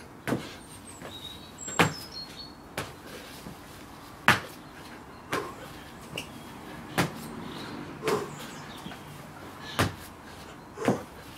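Sharp slaps and thumps from a man doing burpees with mule kicks on patio paving, about one every second or so, with faint bird chirps early on.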